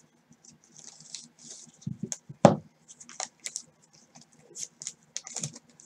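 Scissors snipping open a trading-card pack, with the wrapper crinkling and scattered small clicks, and one louder snap about two and a half seconds in.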